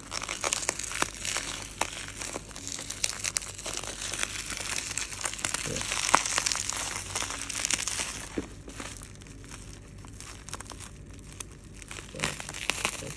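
Black plastic mailer bag and packing tape crinkling and rustling with small crackles as hands pull and tear the parcel open. It goes quieter for a few seconds near the end, then picks up again.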